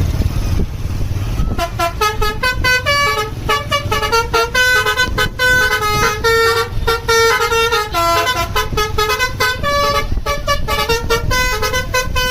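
Telolet basuri multi-tone bus horn playing a fast tune of short notes, starting about a second and a half in, over a low rumble.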